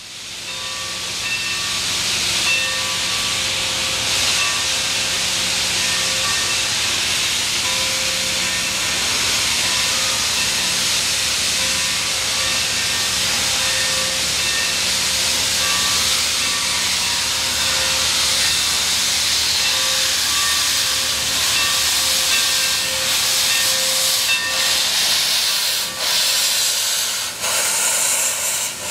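Santa Fe 3751, a 1927 Baldwin 4-8-4 steam locomotive, starting its train: a loud, steady hiss of steam blowing from around its cylinders, building up over the first two seconds. Faint steady tones sound through the hiss.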